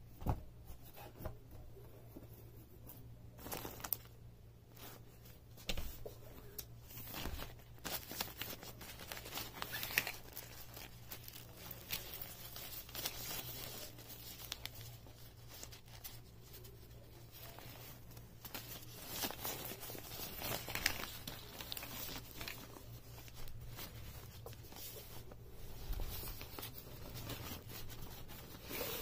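Rustling and crinkling of a black nylon tripod carry bag being handled, its drawstring loosened and the bag pulled along the folded tripod, with scattered sharp knocks and scrapes.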